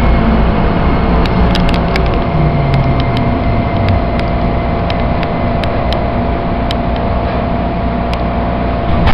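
Light rail train running on the rails in a tunnel: a steady, loud rumble of wheels and running gear, with a motor whine falling in pitch over the first few seconds as the train slows, and scattered sharp clicks.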